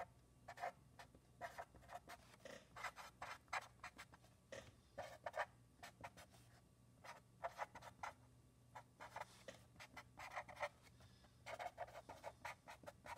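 Black felt-tip marker writing on notebook paper: faint, short, irregular scratchy strokes as words are written out.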